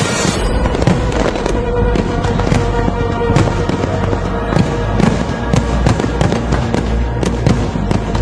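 Fireworks display: a quick series of sharp bangs and crackles, several a second, over loud music.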